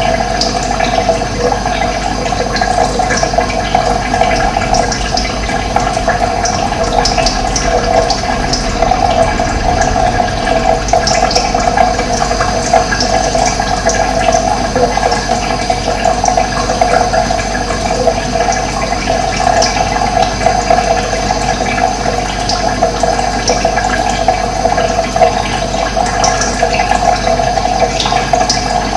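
Running water with a steady, even rushing, and short high bird chirps scattered through it.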